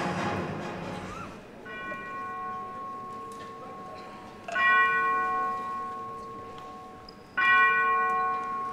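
A bell struck three times, about three seconds apart, each stroke ringing out and slowly fading; the first stroke is softer than the other two. Music fades out in the first second.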